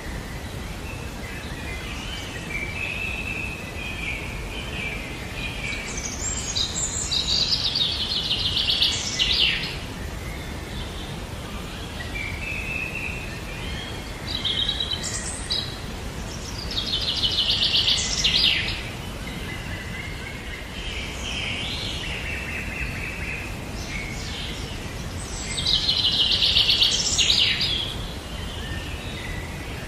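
A songbird singing a loud, fast trilled phrase about every nine seconds, with softer chirps in between, over a steady low background noise.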